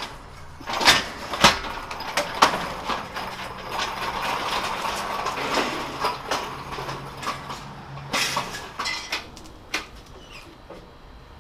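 Electric forklift working under load, its motor humming steadily for a few seconds in the middle, with metal knocks, clunks and rattles from handling a heavy machine on the forks; several sharp knocks come in the first two or three seconds.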